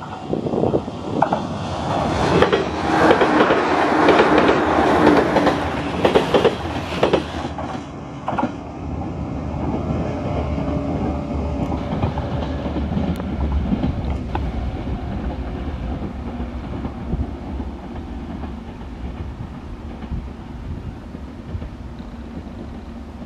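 A 185 series electric express train passing close at speed, its wheels clacking rapidly over the rail joints, loudest in the first seven seconds. It then runs away down the line, the rumble slowly fading.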